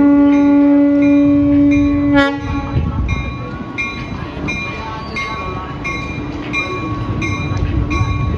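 Diesel locomotive sounding one horn blast of about two seconds, which cuts off sharply. Its bell then rings steadily about twice a second over the low rumble of the approaching train.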